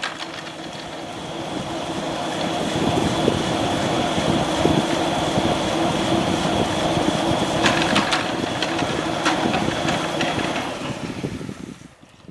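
Städeli surface ski lift running at its station: a steady mechanical hum with a high whine from the haul rope running over the sheave rollers, and a few sharp clicks about two-thirds of the way through. It swells over the first few seconds and fades away near the end.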